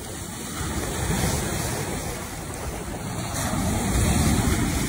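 Ocean surf breaking and washing up the beach, with wind buffeting the microphone; the rush of water grows louder about three seconds in.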